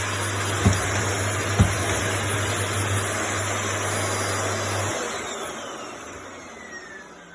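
Vacuum cleaner motor running steadily with two short knocks in the first two seconds, then switched off about five seconds in, its motor winding down with a falling whine as the noise fades away.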